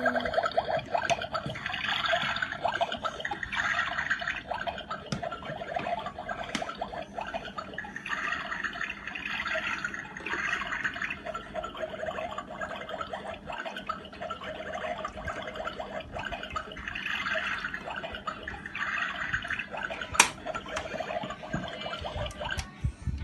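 Small battery-powered toy water pump running with a steady hum while water flows and splashes in the toy kitchen set. There is a sharp click about twenty seconds in.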